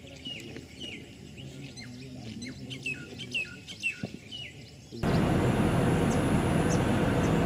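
Birds chirping over a quiet background, a string of short calls that each slide downward. About five seconds in, this cuts off abruptly to a loud, steady rush of road and wind noise from a moving vehicle.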